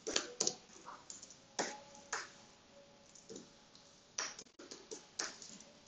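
Computer keyboard keys being struck one at a time, a handful of separate sharp clicks about half a second to a second apart, with a short pause in the middle.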